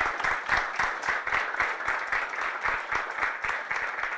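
An audience of many people applauding, a dense, even patter of hand claps that keeps going at a steady level.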